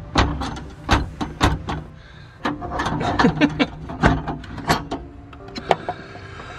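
Irregular sharp clicks, knocks and metal clatter from a steel tool cabinet as its drawer-lock hardware is worked on by hand.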